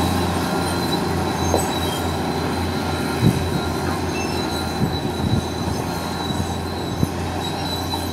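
Large crawler excavator's diesel engine running steadily under load, with a thin, steady high whine over the low hum and a few short low thumps.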